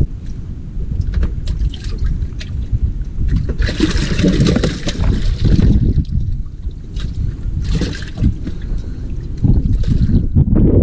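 Water splashing and sloshing in a bass boat's livewell as bass are handled in it, loudest for a couple of seconds near the middle.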